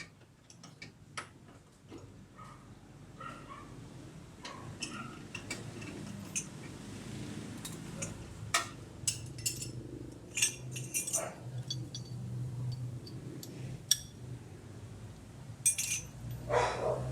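Scattered metallic clinks and knocks of hand tools and parts during suspension repair under a van, over a steady low hum, with a short louder burst near the end.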